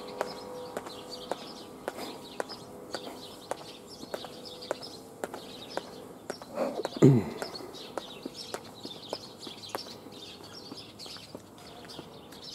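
Footsteps on stone steps and paving, a sharp step about twice a second, with small birds chirping throughout. About seven seconds in, a short, louder sound glides down in pitch.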